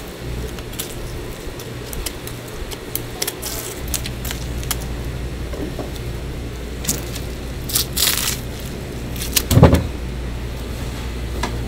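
Knife slicing a fillet off a large whole fish on a plastic cutting board: soft wet scraping and crackling cuts over a steady low hum, with a heavier wet thud a little before the end.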